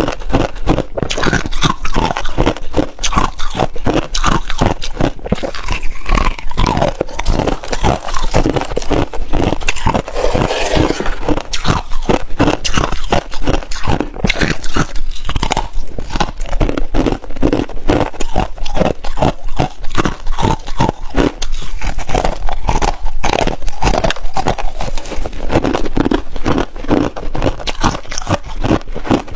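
Freezer frost crunching as it is bitten and chewed close to the microphone: a dense, continuous run of crackling crunches.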